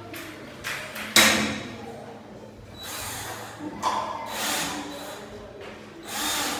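Metal jalousie window frame being handled and knocked together, with a sharp metallic knock about a second in and further clunks. Near the end a cordless drill drives a screw into the frame's corner bracket.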